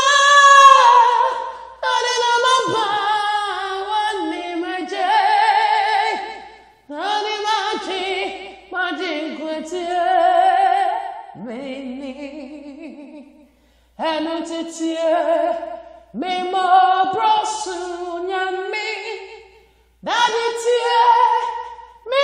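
One voice singing a slow Twi gospel song with no accompaniment, in long held phrases with short breaks between them.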